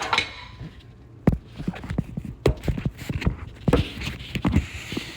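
Irregular knocks and clatter of kitchen dishes and utensils being handled, with a scraping sound through the middle and later part.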